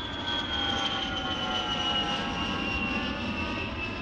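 F/A-18 jet fighter's engines running as it flies past: a steady rush with a whine that slowly falls in pitch.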